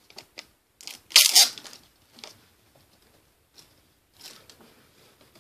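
A thin plastic card sleeve being handled, crinkling and rustling in several short bursts, the loudest about a second in.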